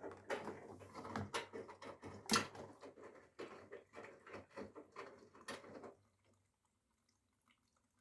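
Whirlpool FSCR90425 front-loading washing machine running a wash cycle: a steady motor hum under irregular sloshing and soft thuds of laundry tumbling in water, with a sharp clack about two and a half seconds in as the detergent drawer is pulled open. The hum and tumbling stop about six seconds in as the drum comes to rest.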